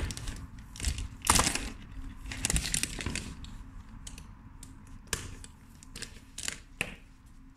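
Close handling sounds: many small irregular clicks and light clinks mixed with short rustles, busiest in the first half and sparser toward the end.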